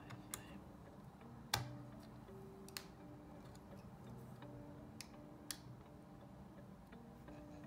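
Five sharp clicks and taps, the loudest about a second and a half in, over faint background music.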